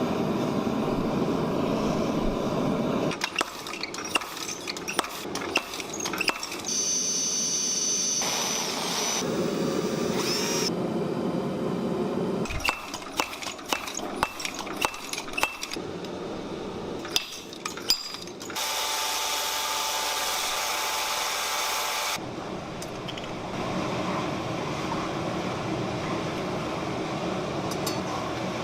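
A run of quickly cut metalworking sounds from forging coin metal into mokume gane: steady tool noise, a high whine, many sharp metallic taps and clinks, and a stretch of hissing, each breaking off abruptly at a cut.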